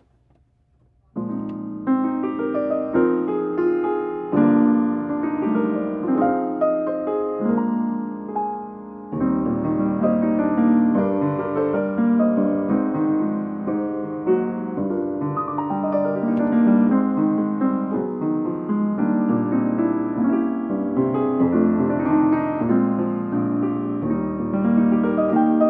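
Solo piano playing continuously, starting suddenly about a second in.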